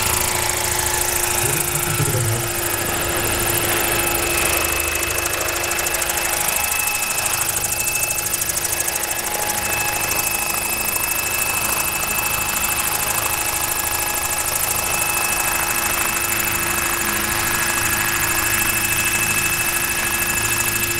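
Large electric RC scale model helicopter of a Bell 206 Jet Ranger flying low: the electric drive gives a steady even whine, under the rapid rotor-blade beat.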